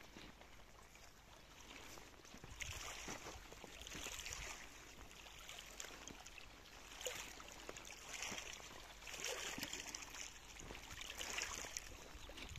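Small waves lapping faintly on a pebbly reservoir shore, soft washes that swell and fade every second or two, with a few small clicks from stones.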